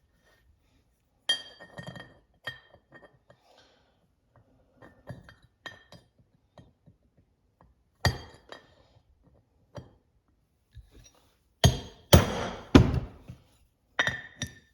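Steel tools clinking and ringing on a workbench, then about four sharp hammer blows on a flat punch near the end, staking the edge of a newly installed transmission bushing in at two spots.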